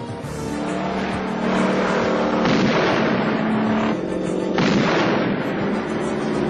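Action-film sound mix of a police car's engine running, with loud bangs about two and a half and four and a half seconds in.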